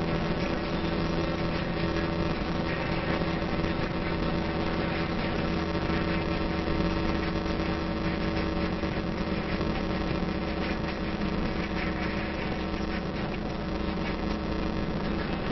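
Steady engine drone and road noise of a moving road vehicle, heard from inside the cabin, holding an even pitch and level throughout.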